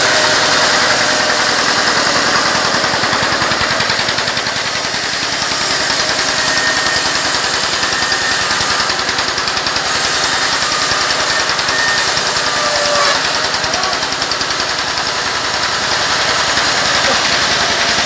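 Vertical band sawmill running steadily with a loud, dense machine drone from its drive and blade while timber is cut into planks and beams.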